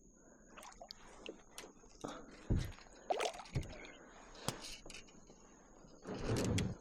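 Light splashing and dripping water with scattered clicks and a few dull thumps against a kayak as a hooked redfish is played close alongside, over a faint steady high whine; a louder splash comes near the end.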